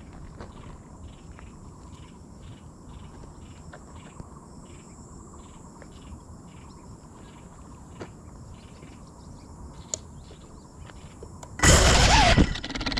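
Insects, cricket-like, chirping in a steady pulsing rhythm of a few chirps a second over a thin high buzz in grassland. Near the end a loud sudden rush of noise lasts about a second.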